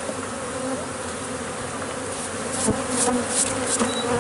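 A dense crowd of honeybees buzzing steadily, a continuous hum. A few light knocks sound in the second half.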